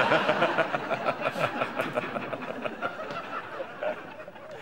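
Studio audience laughing, loudest at the start and dying away gradually.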